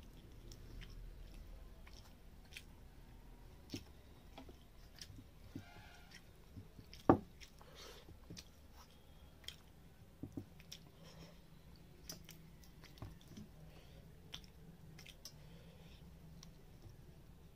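Eating by hand: chewing and wet squishing as rice and gravy are mixed with the fingers on a steel plate, with scattered light clicks and one sharp, louder click about seven seconds in.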